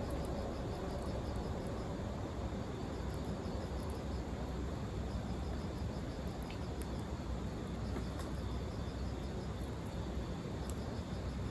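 Insects chirping in short, rapidly repeated pulses over a steady low rumble, with a few scattered sharp crackles.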